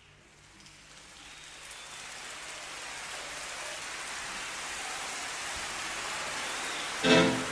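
A rain-like hiss fades in from near silence and grows steadily louder. Near the end a brief, loud pitched sound cuts in.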